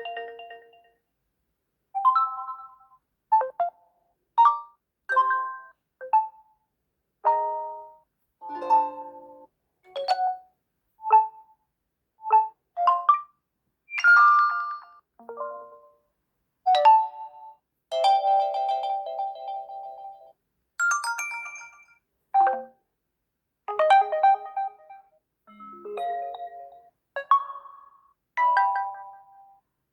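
Realme C25s phone's built-in ringtones previewed one after another: a quick series of short melodic chimes, most lasting about a second, with brief silences between them.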